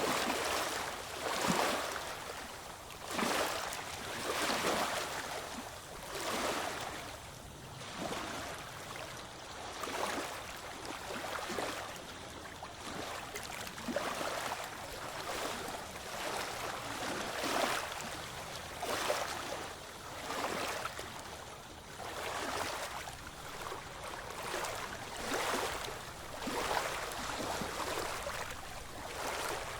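Ocean waves washing in, with a rush of water swelling and fading about every one to two seconds.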